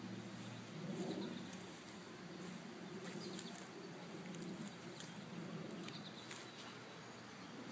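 Honda VTX 1800's big V-twin idling faintly, a low uneven rumble, with short high bird chirps over it.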